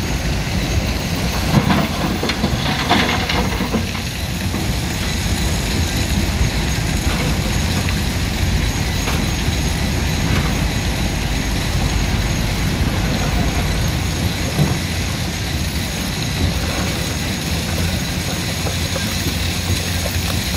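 Komatsu PC210LC excavator's diesel engine running steadily under load as it digs and swings. About two seconds in, a clatter of rock pours from the bucket into the dump truck's steel bed.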